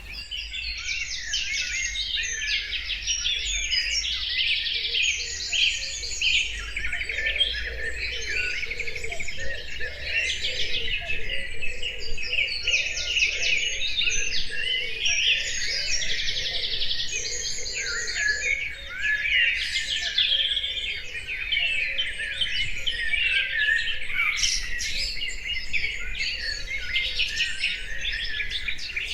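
Several songbirds singing at once: a dense, continuous chorus of chirps and fast trills.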